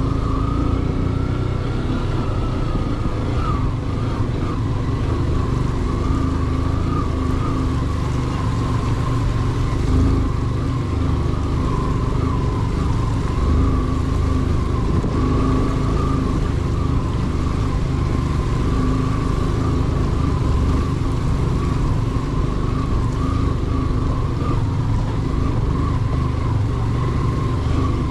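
Vehicle engine running steadily while under way, a continuous drone with a slightly wavering higher whine over it.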